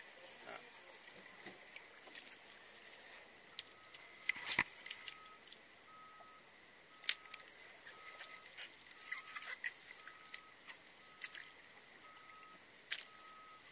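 Quiet handling of a spinning rod and reel: scattered sharp clicks and small knocks over a low background, with a faint short tone repeating about every 0.6 s from about a quarter of the way in.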